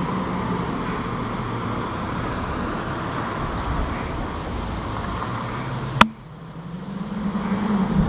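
Steady background noise of distant road traffic with a low hum. About six seconds in there is a single sharp click; the sound then drops and builds again with a low engine hum.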